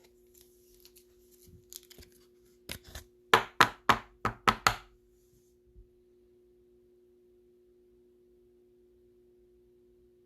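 Soft rustle of card handling, then a quick run of sharp taps and knocks on a tabletop lasting about two seconds, typical of a card being tapped down into a top loader.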